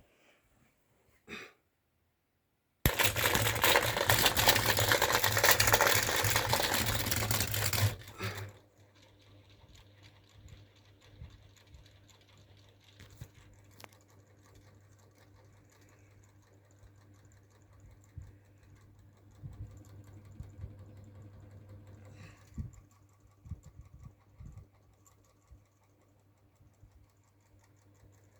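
Mini ceiling fan's small electric motor running: a loud, fast rattle for about five seconds starting near three seconds in, then a quiet steady hum with scattered faint clicks.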